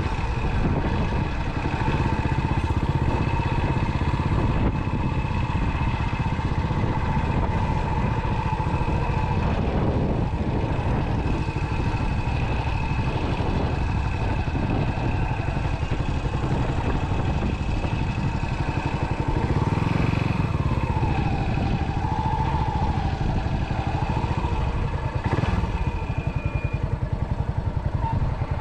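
Yamaha SR single-cylinder four-stroke motorcycle engine running steadily while being ridden; the engine note dips and rises again a little past twenty seconds in.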